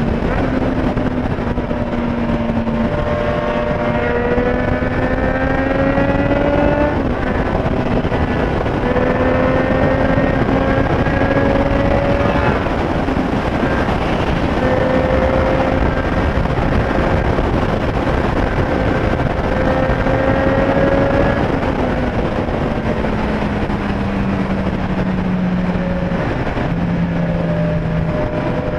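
Triumph Street Triple 765 S's three-cylinder engine running under way, with a steady rush of wind and road noise. The engine note rises over the first several seconds and then drops suddenly, holds steady through the middle, and falls in two steps near the end.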